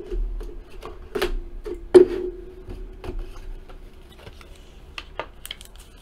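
Scattered clicks and taps of trading cards and their rigid plastic holders being handled on a table, the sharpest click about two seconds in.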